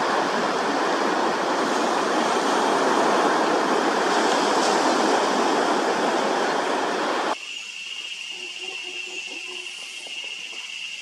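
Rushing water, a steady even roar like a waterfall or heavy surf, which cuts off abruptly about seven seconds in. A much quieter scene follows, with a steady high-pitched drone.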